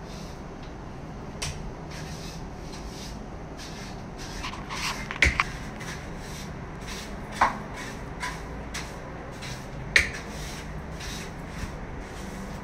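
Long-handled broom sweeping a wall in quick repeated scratchy strokes, about two or three a second, with a few sharp knocks from the broom striking the wall about halfway through and again later.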